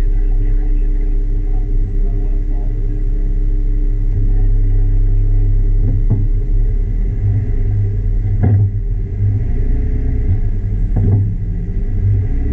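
Jeep Wrangler JK Rubicon engine running low and steady, with three sharp knocks about halfway through, a little later, and near the end.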